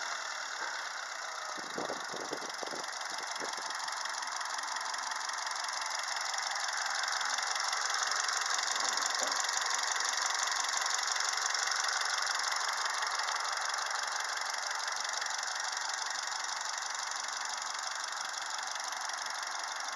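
Hyundai Solaris 1.4-litre G4FA 16-valve four-cylinder engine idling steadily, heard up close in the open engine bay. A few brief thumps about two seconds in.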